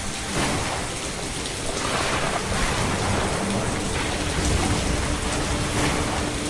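Steady rain falling, with a sharp crack just after the start and a low rumble of thunder swelling about four to five seconds in.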